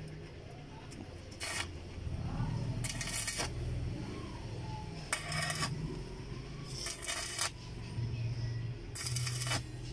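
Electric arc welding on a steel seat frame: about five short bursts of arc crackle, each about half a second long and a second or two apart, as tack welds are struck. A low steady hum runs underneath.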